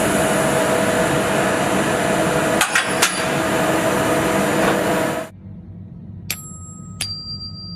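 Metal-cutting machine noise, a steady hiss with a few humming tones and two sharp clicks, that stops suddenly about five seconds in. Then a freshly machined metal tuning fork is struck twice, and after the second strike it rings with a steady pure high tone.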